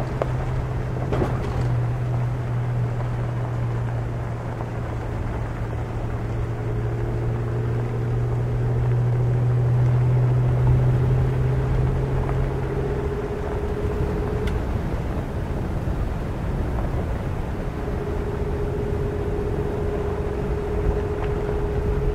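Vehicle driving along a gravel dirt road: steady engine hum with tyre and road noise. About halfway through the hum drops away into a rougher, even road rumble.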